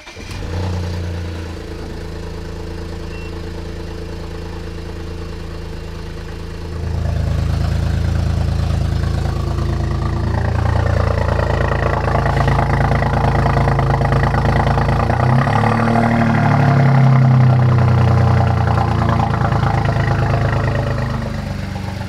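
BMW 335i's N54 twin-turbo straight-six starting and running rough, still misfiring: the owner's code read after the start shows cylinders 4, 5 and 6, with a possible internal fault in the MSD80 DME. The engine gets louder about seven seconds in, and its pitch rises and falls briefly past the middle.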